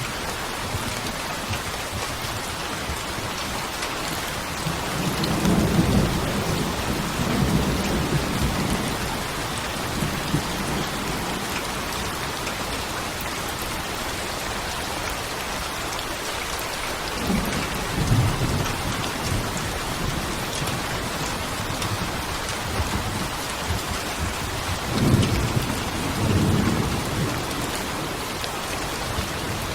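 Steady heavy rain, with rolls of low thunder rumbling about 5 seconds in, again around 18 seconds, and once more near 25 seconds.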